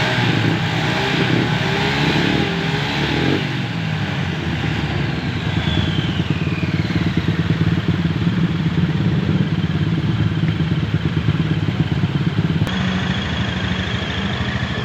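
Automatic scooter engine running at a steady idle with a fine rapid ticking and a thin, high squeal heard from the CVT drive belt area, the strange noise being tracked down. Intro music fades out in the first few seconds.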